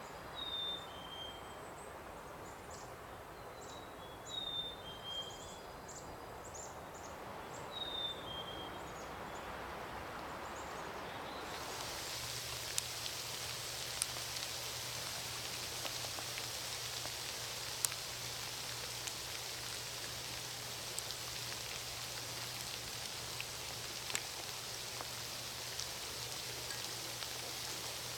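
Small birds chirping in short, repeated falling notes over a steady outdoor hiss of water. About a third of the way in, this cuts to a dense patter of falling water drops with occasional sharper single drips and a low steady hum underneath.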